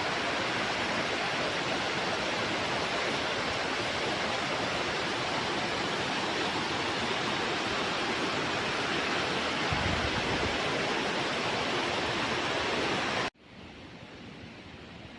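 Waterfall rushing: a steady, loud roar of falling water. It cuts off abruptly about 13 seconds in, leaving a much quieter hiss.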